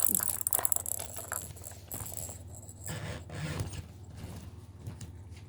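Plastic crinkling and light clicking from a new cat toy still in its plastic bag as a cat fiddles with it. The sound is busiest in the first two seconds, then thins out to scattered clicks.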